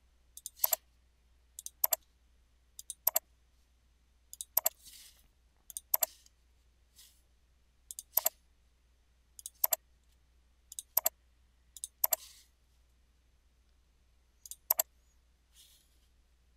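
Computer mouse button clicking: about ten short double clicks, each a quick press-and-release pair, spaced unevenly one to two seconds apart.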